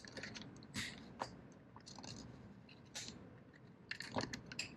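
Faint plastic clicks and scrapes as the battery charger's rotary timer switch is handled and pressed together by hand, a few sharper clicks at irregular intervals.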